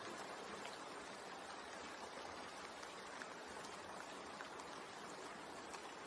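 Steady rain: an even, soft hiss with faint scattered drop ticks.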